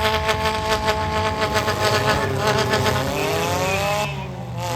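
Demolition derby cars' engines revving hard, their pitch climbing and then holding, with a rough, rattling noise underneath; the sound eases a little near the end.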